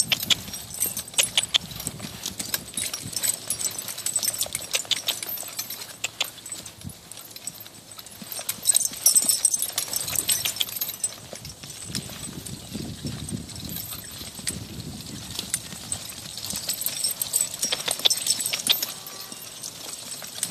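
Horse's hooves beating a steady trot on dry turf and dirt.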